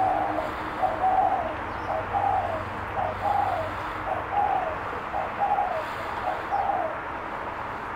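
Spotted dove cooing: a steady run of about eight short two-part coos, roughly one a second, stopping about seven seconds in.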